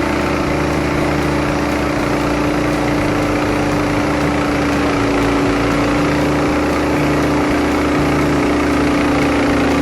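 Engine of a Wood-Mizer LT15START portable sawmill running at a steady idle, with an even hum and no load.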